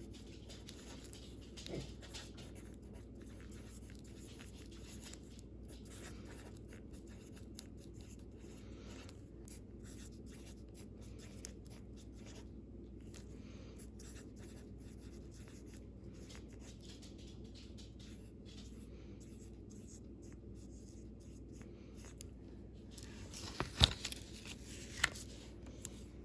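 Faint steady low hum of a small room, with a light click about two seconds in and a few sharp clicks or knocks near the end.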